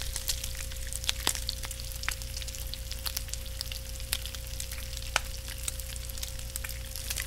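Mustard seeds, curry leaves and a dried red chilli crackling in hot oil in a small pan: a steady sizzle with scattered sharp pops.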